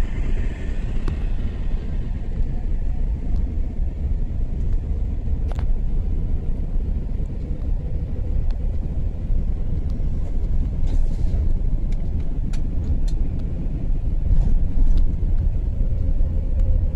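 Steady low rumble of road and engine noise from a vehicle driving along a paved bridge road, with a few faint brief clicks.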